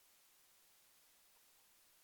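Near silence: a faint steady hiss with no distinct sound.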